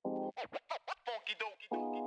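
Channel intro music sting: a short held synth chord, a run of quick rapid pitch-sweeping scratch-like sounds, then another held chord near the end.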